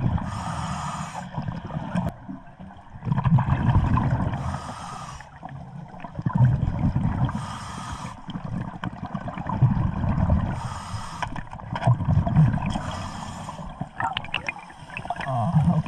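Scuba diver breathing through a regulator underwater: a hiss on each inhale and a bubbling rumble as each breath is exhaled, five breaths at a steady pace.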